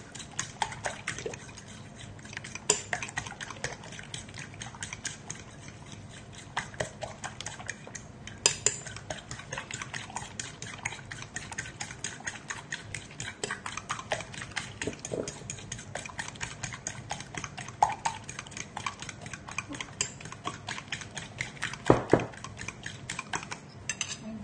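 Metal utensil beating raw eggs in a bowl, a quick steady run of clicks as it strikes the bowl, with a few louder knocks, the loudest near the end.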